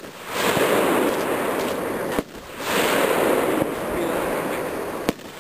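Home-made fireworks rockets launching one after another: two rushing roars of about two seconds each, the first cut off by a sharp crack about two seconds in, the second ending with another sharp crack near the end.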